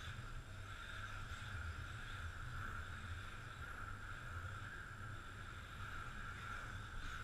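Faint, steady high whine over a low hum, from radio-controlled touring cars running on an indoor track, the whine swelling and fading a little as they go round.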